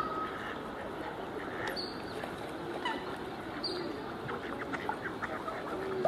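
Waterfowl calling over steady outdoor background noise: scattered short calls, with a quick run of calls about five seconds in.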